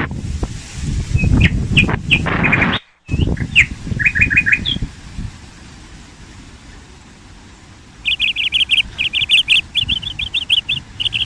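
Small birds chirping, with a few short chirps early on over a low rumble. From about eight seconds in comes a fast run of repeated chirps.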